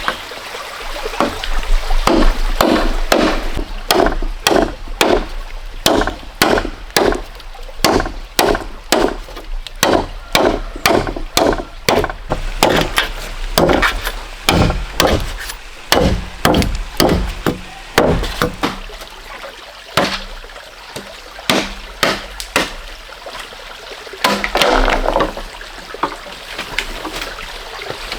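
Bamboo being chopped with a blade: a long series of sharp, woody strokes, about one to two a second with short pauses, ending in a few seconds of rustling near the end.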